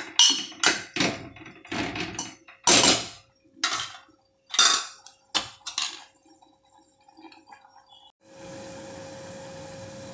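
A steel spoon scraping and knocking against a metal pot as thick urad dal is stirred into tomato masala, in irregular strokes for about six seconds. From about eight seconds in, a steady even hiss takes over.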